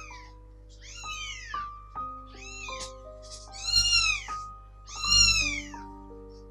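A three-week-old kitten meowing repeatedly: about five high meows that rise and fall in pitch, the loudest two just past the middle. Background music with held notes plays underneath.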